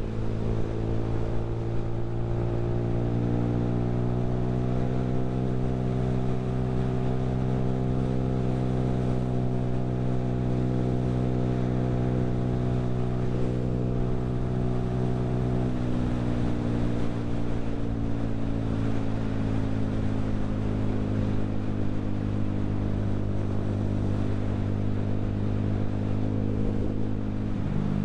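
Keeway Superlight 125cc motorcycle engine running steadily on the move. Its pitch rises slightly at first, holds, then falls gradually through the second half, and changes abruptly near the end.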